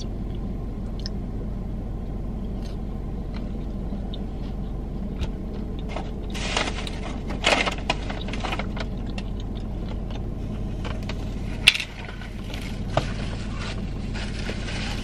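Steady low hum of a parked car running, with scattered small clicks and rustles from handling fried chicken, takeout containers and a paper napkin. A short burst of rustling comes about halfway through, and a single sharp click comes about three-quarters of the way in.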